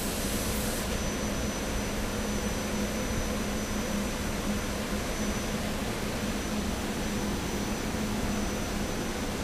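SEPTA Silverliner electric multiple-unit commuter train running steadily, an even rushing drone with a constant low hum underneath.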